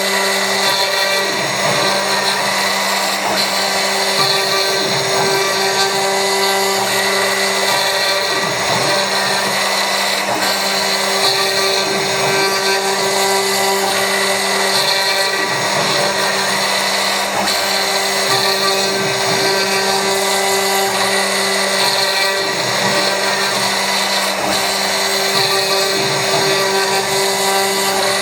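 CNC milling machine running, its spindle driving a ball-nose end mill through a cut at a steady feed. A steady whine with hiss over it, and a higher tone that drops in and out every few seconds as the machine moves.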